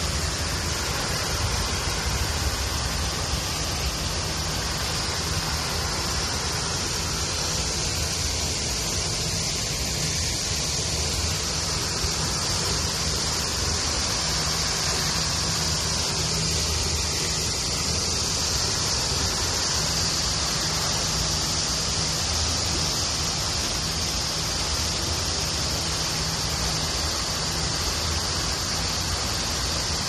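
Tall single-jet pond fountain, its water falling back onto the pond surface in a steady, unbroken hiss of splashing water.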